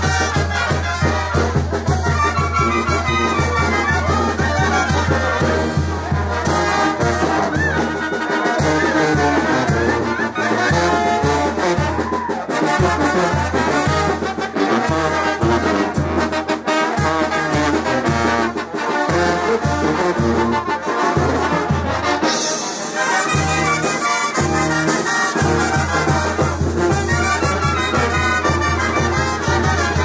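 Live Mixtec village brass band (banda de viento) playing dance music: trumpets and trombones carry the tune over a pulsing bass line from two tubas, with percussion keeping a steady beat. The tuba bass drops back briefly twice, about a third of the way in and again near three-quarters.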